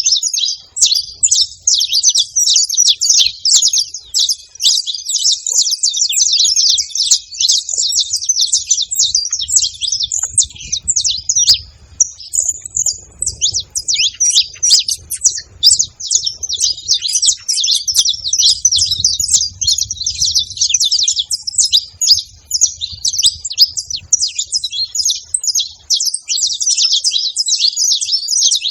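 A flock of saffron finches chirping together without a break, many short high calls overlapping into a dense chatter.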